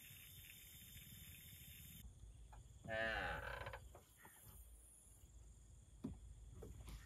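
A steady high-pitched night chorus of insects that cuts off after about two seconds. Then a cow moos once, loudly, about three seconds in, followed by a few soft knocks.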